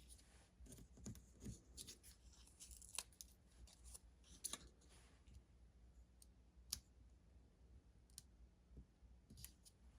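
Faint, scattered clicks and crisp paper rustles from handling paper-craft pieces: foam adhesive dimensionals being peeled from their backing sheet and pressed onto cardstock.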